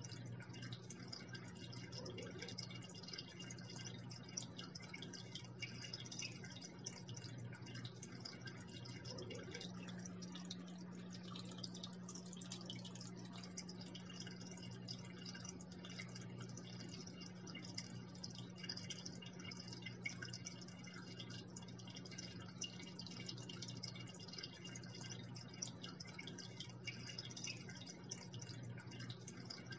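Water falling and splashing into an aquarium: a continuous fine trickle made of many small drips and splashes, over a steady low hum.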